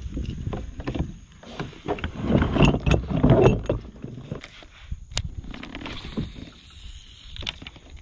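Irregular knocks, rattles and water sloshing around a plastic Hobie pedal fishing kayak as the angler moves about and handles his rod, busiest about two to three and a half seconds in.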